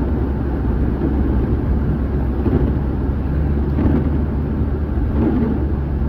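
Steady low road rumble heard from inside a car's cabin while driving on a wet, slushy road in falling snow: tyre and engine noise.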